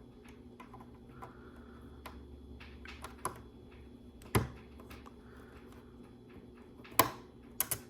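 Small plastic LEGO pieces clicking and tapping as they are handled and pressed into place: scattered light clicks, with sharper ones about four seconds in and near the end.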